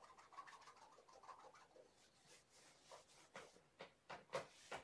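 Faint scratching and rubbing, then a run of sharp ticks and taps that grow louder toward the end.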